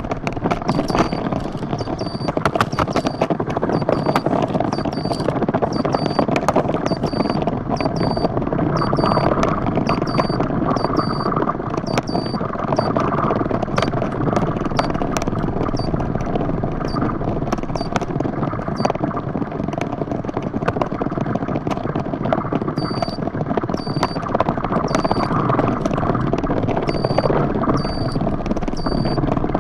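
Kiteboard skimming over water at speed: a steady rushing hiss with rapid clattering knocks as the board chatters across the chop. A short high electronic beep repeats about once a second for stretches.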